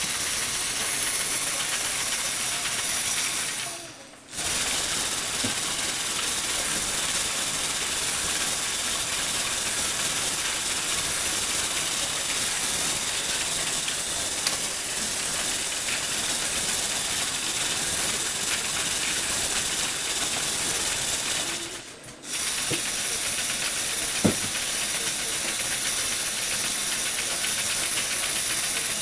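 Lego Technic electric motor and its gear train running steadily, a continuous whirring hiss of plastic gears. It drops away briefly twice and comes straight back, and there is a single sharp click late on.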